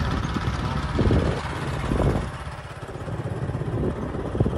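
Motorcycle running steadily while being ridden.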